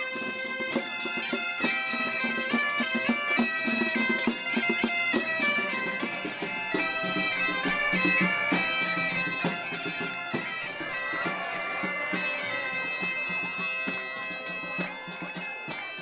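Bagpipe playing a folk melody of short stepping notes over a steady drone.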